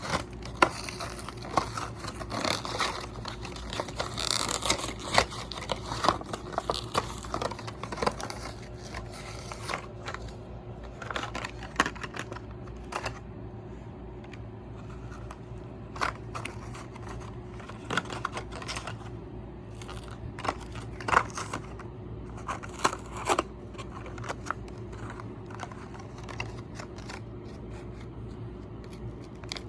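Hands opening and handling toy car packaging: crinkling, tearing and scraping, busiest in the first ten seconds, then scattered clicks and taps. A steady low electrical hum runs underneath.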